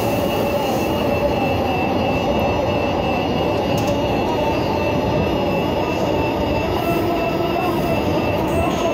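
Metro SubwayLink train running at speed, heard from inside the passenger car: a continuous rumble of wheels on the rails with a thin, high, steady whine over it.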